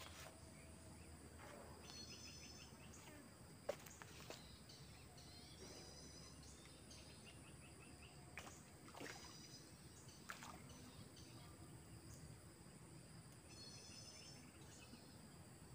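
Faint outdoor ambience: a steady high insect drone with short, high chirping trills every few seconds and a few faint clicks.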